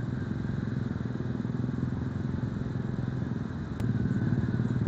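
A small engine running steadily, a low pulsing hum that gets a little louder near the end, with a single brief click.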